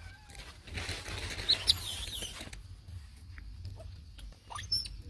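Short high squeaks from a baby macaque: a few about a second and a half in, over a rustling noise, and one quick rising-and-falling squeak near the end.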